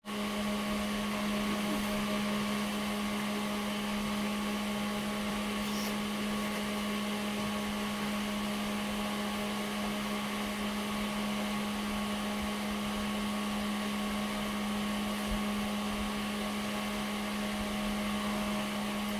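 Steady electrical hum and fan whir from workshop equipment: one strong low tone with fainter higher tones over an even hiss, unchanging, with a couple of faint ticks.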